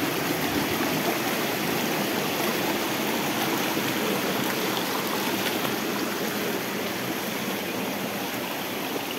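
Water running steadily from a small spring, a continuous rush of flowing water.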